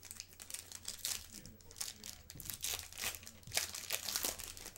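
Foil wrapper of a 2014 Bowman Chrome baseball card pack being torn open and crinkled by hand: a dense run of crackles, loudest near the end.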